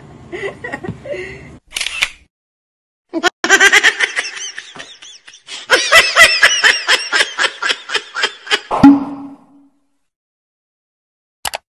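Hard, rapid laughter in quick repeated bursts for several seconds, then a short thump about nine seconds in and a single click near the end.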